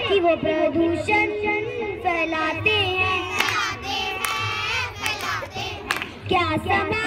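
A young girl singing, holding notes and gliding between them, with a sharp knock about six seconds in.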